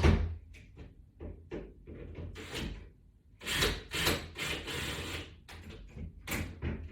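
Mounting hardware being worked by hand while a screw is tightened into a wall: irregular knocks and clicks, the loudest at the very start, with a stretch of scraping about halfway through.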